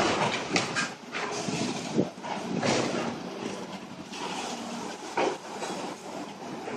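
Demolition machinery knocking a large water tank off the top of a building: a continuous noisy din of scraping and rattling, broken by irregular sharp knocks, the loudest about two seconds in and another about five seconds in.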